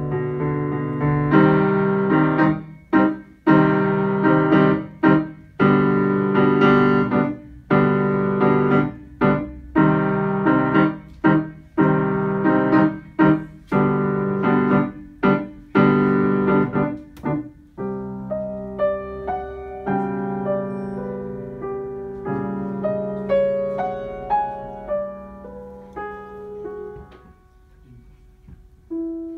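Grand piano being played: loud, heavy chords struck again and again with short sharp breaks between them, then, a little past halfway, a softer passage of single higher notes over held low notes that dies away near the end.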